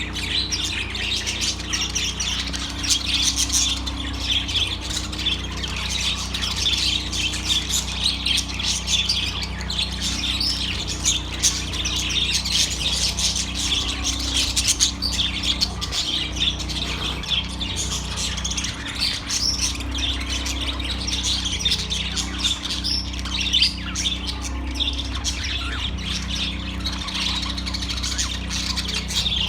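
Budgerigars chattering and chirping without a break, many short overlapping calls and squawks, over a low steady hum.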